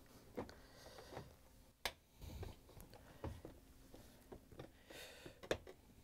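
Faint clicks and light knocks of a dishwasher control panel being handled and seated onto the door, with a sharper click just under two seconds in and another near the end.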